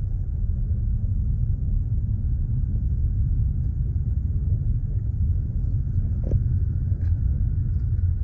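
Steady low rumble of a car's road and engine noise heard inside the cabin while driving on a snow-covered road. A short click sounds about six seconds in, and a fainter one a second later.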